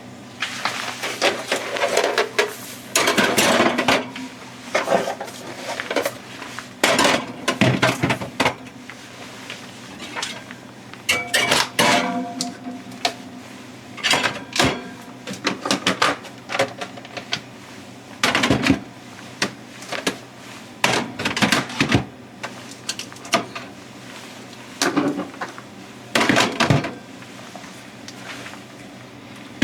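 Irregular clatter and knocks of dishes, pots and utensils being handled in a kitchen, with a brief ringing of struck metal or glass a little before halfway.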